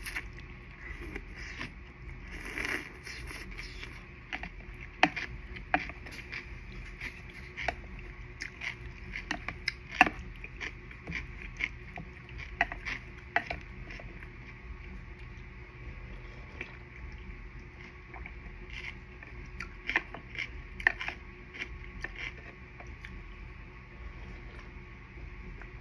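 Close-miked mukbang eating: scattered sharp clicks and taps of utensils and mouth sounds over a steady low hum, with a short noisy rush about two and a half seconds in.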